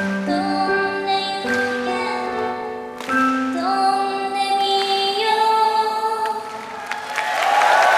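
A woman singing a slow, gentle ballad while accompanying herself on a Roland digital stage piano, with held chords and long sung notes. Near the end, applause and cheering swell as the song closes.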